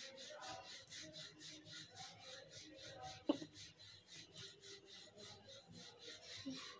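Wooden rolling pin rolling paratha dough back and forth on a floured stone counter: a soft, quick rhythmic rubbing of several strokes a second. A single sharp knock about a third of the way in.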